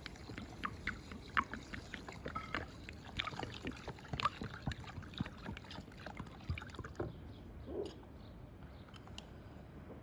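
Water poured from a clay jug into an enamel bowl of rice, splashing and gurgling, with the quick knocks of a knife chopping carrots on a wooden board. Both die down about seven seconds in.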